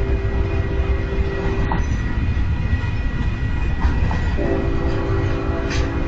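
Double-stack intermodal freight cars rolling past with a steady low rumble of wheels on rail. Over this, a train horn sounds two long blasts: one running through the first two seconds and another starting about four and a half seconds in.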